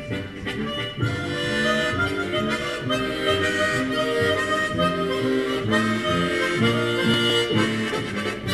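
Harmonica trio playing a tune: a low bass line moving under held chords and melody.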